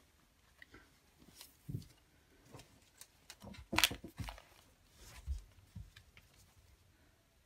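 Quiet rustling and handling of a long-sleeve shirt as it is unfolded and smoothed flat on a table, with a few soft thumps and one sharper rustle about four seconds in.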